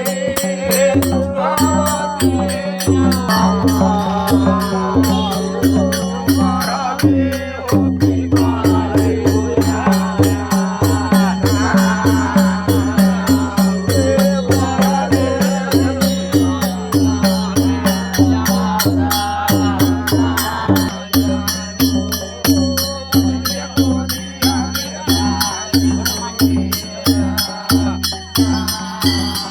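Devotional folk music: an even, repeating rattle-like beat over a held drone, with a wavering melody on top.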